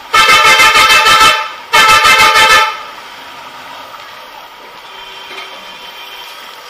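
A motorcycle's electric horn honked twice: a loud buzzing blast of just over a second, then a shorter one. After that only a steady low background of engine and street noise remains.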